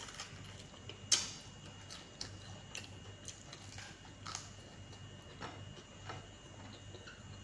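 Faint, scattered wet clicks and smacks of a person chewing tilapia eaten with the hands, with one sharper smack about a second in, over a faint steady hum.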